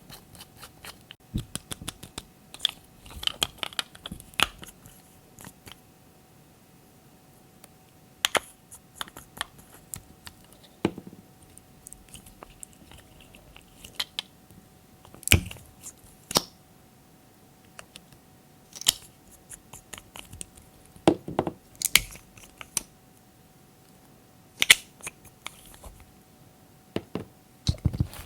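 Glossy slime being mixed and handled by hand: irregular sticky clicks and crackles with a few sharper pops.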